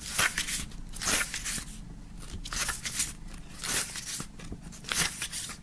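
Paper pages of a thick CD lyrics booklet being flipped one after another, a short rustling swish about once a second.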